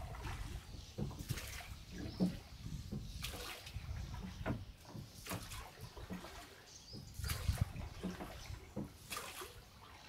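Water splashing and sloshing in irregular bursts.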